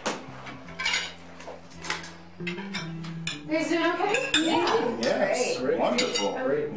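Knives and forks clinking and scraping on dinner plates, in small scattered clicks. From about halfway in, a louder pitched sound that wavers up and down in pitch joins the clinking.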